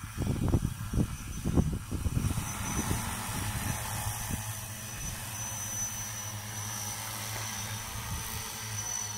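A 6-litre agricultural spray drone hovering and flying, its motors and propellers giving a steady hum with a thin high whine above it. A few irregular low thumps in the first two seconds.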